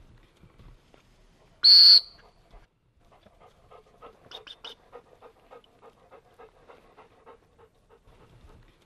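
A single short, shrill blast on a dog training whistle, then a Labrador retriever panting steadily, about three to four breaths a second.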